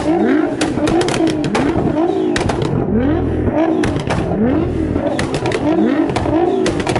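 Tuned Nissan GT-R R35's twin-turbo V6 blipped over and over through an aftermarket quad-tip exhaust. It makes about three quick rising revs every two seconds, with sharp pops and crackles between them.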